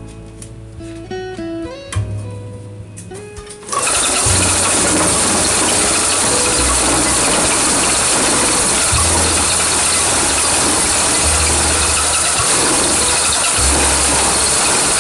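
Music with plucked notes, cut off about four seconds in by the loud, steady rattling din of a concrete block press machine running, with a deeper hum swelling every couple of seconds.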